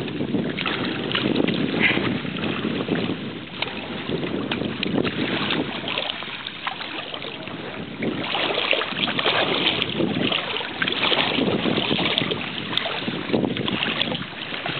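Wind gusting across the microphone over shallow seawater sloshing around a wading child, with small splashes as she reaches into the water. The gusts get louder in the second half.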